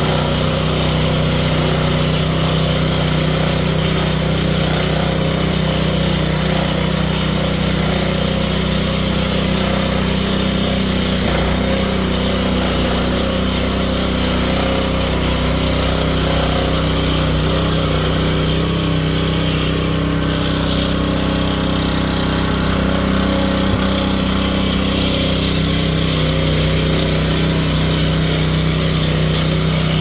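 Gorilla early-entry concrete saw with a Honda GX200 single-cylinder four-stroke engine, running steadily under load while its blade cuts a joint in a concrete slab. The engine note holds a constant pitch and level throughout.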